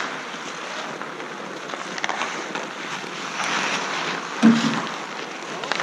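Ice hockey on an outdoor rink: skate blades scraping and carving on the ice, with scattered stick and puck clicks, and a single loud thump about four and a half seconds in.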